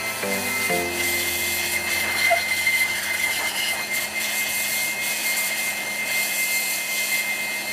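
Blower running steadily to dry a washed bicycle: a rush of air with a steady high whine.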